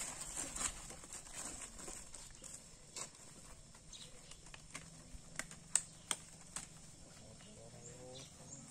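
Paper wrappers of sterile gloves rustling and crinkling as they are opened, with a scattering of sharp clicks and snaps from the gloves and packaging being handled, the loudest a little past the middle.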